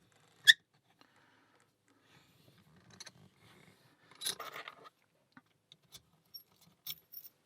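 Lock picks and a tension wrench working in a small brass padlock's keyway, giving light metallic clicks and scrapes in short bursts. A single sharp click about half a second in is the loudest sound.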